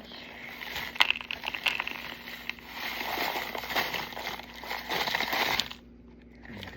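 Crinkly packaging rustling and scraping, with sharp clicks and knocks, cutting off abruptly near the end.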